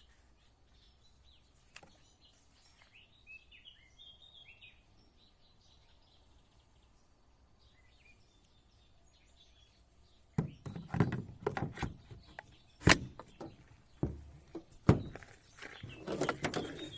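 Faint bird chirps in a quiet background. About ten seconds in, a run of irregular handling knocks and clicks starts, with two sharp clicks.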